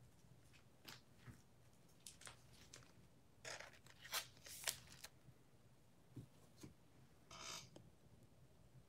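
Faint rustling, light clicks and short scrapes of trading cards and packaging being handled, with a small cluster of scrapes in the middle and one longer scrape near the end.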